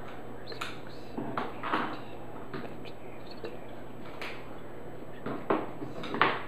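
Scattered light clicks and taps of small vitamin E softgel capsules being handled and dropped into a plastic Vitamix blender jar, the two loudest near the end, over a steady low hum.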